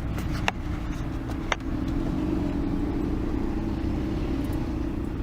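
Car engine and road noise as the car pulls away, the engine note rising and getting stronger about two seconds in. A few sharp clicks in the first second and a half.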